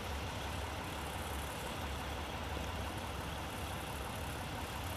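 Heavy truck diesel engine, the Peterbilt 389's Cummins ISX15, idling steadily at a low, even pitch.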